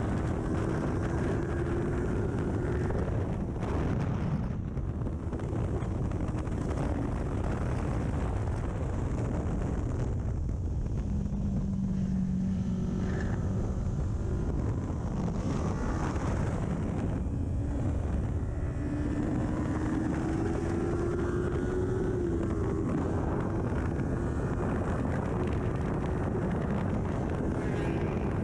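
Kawasaki Ninja 400 parallel-twin engine with an aftermarket full exhaust, ridden hard under heavy wind rush. The revs climb, settle to a lower steady note near the middle, then climb again and fall sharply a few seconds before the end.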